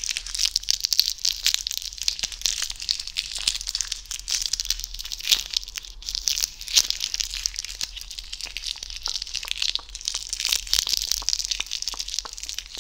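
A red gift bag crinkled and squeezed right up against the microphone: a dense, continuous crackle full of small sharp crackles.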